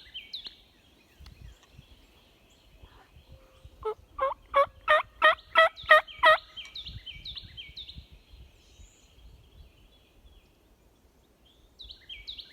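A wild turkey gobbling: one rapid rattling gobble of about eight quick pulses lasting just over two seconds, starting about four seconds in. A songbird's fainter, high, repeated down-slurred notes come before and after it.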